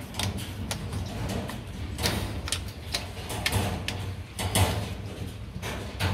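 Asian palm civet eating a whole raw fish on a wire-mesh cage floor: irregular sharp clicks, crunches and knocks as it bites and handles the fish.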